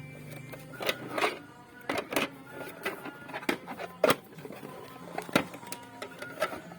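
Hard plastic boxes and packaging being handled and sorted, giving irregular clicks and knocks with some rustling.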